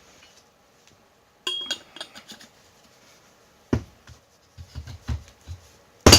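Metal tools and fork parts clinking and knocking on a workbench: a short ringing clink about a second and a half in, a knock, several dull thuds, then a loud clank at the end.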